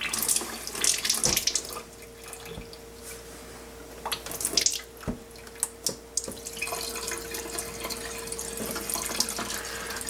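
Water streaming out of a coffee maker water tank's spigot and splashing into a sink, a fresh-water rinse flushing descaling cleaner out of the tank. The splashing is louder in the first couple of seconds and again about halfway through.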